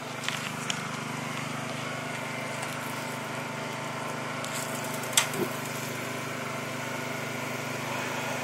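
Small portable generator engine running steadily, with one short click about five seconds in.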